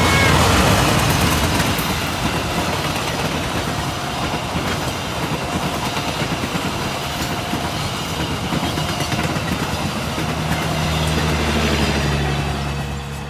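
Indonesian diesel-hauled passenger train passing close by: the locomotive goes by loudest at the start, then the coaches rumble past with wheels clicking over the rail joints. A short level-crossing warning tone repeats faintly over it, and a steadier low hum builds near the end.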